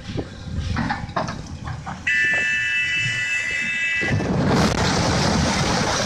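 A horn sounds one steady blast for about two seconds. It then gives way to the crash of a heavy marble block toppling off the quarry face, a long spell of stone breaking and rubble sliding.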